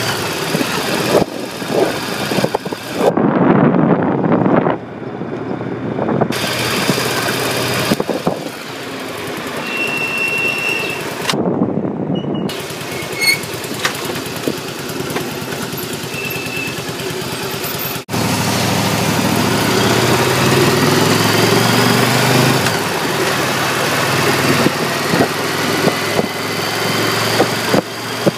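Cruiser motorcycle's engine running under way, mixed with heavy rushing wind noise. The engine note climbs in steps past the middle, as the bike accelerates.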